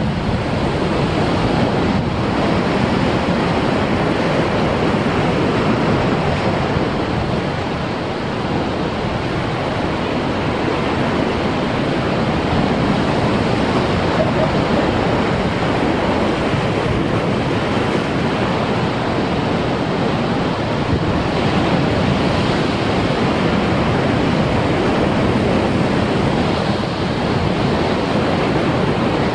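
Heavy surf breaking on a rocky shore, the waves washing over a rock ledge into a tide pool: a steady rush of water that swells and eases slightly.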